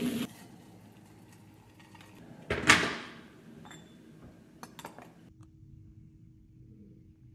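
Tea things being handled on a kitchen counter: one sharp clatter about two and a half seconds in that dies away over about half a second, then a few light clicks, then a faint steady hum.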